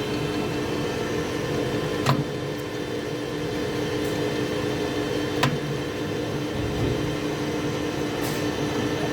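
Metal lathe running steadily as it turns a brass workpiece, taking a light 0.5 mm cut off the diameter. Two sharp clicks come about two seconds and five and a half seconds in.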